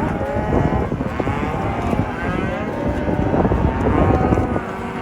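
A herd of cattle, cows and calves, bawling and mooing, many calls overlapping at once.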